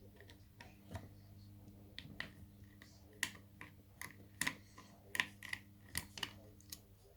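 Irregular light clicks and metallic taps, a dozen or so, as a lever mortice lock is handled and opened up by hand.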